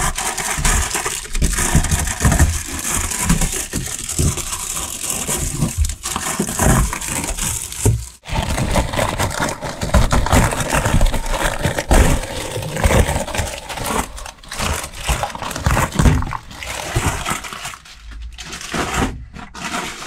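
Crackling, scraping and knocking as a parchment-paper-covered backing plate is pulled free of cured fiberglass resin and handled, with many irregular knocks throughout.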